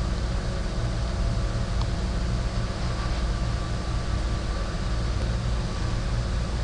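Steady low hum with an even hiss: the recording's background noise, with no other event standing out.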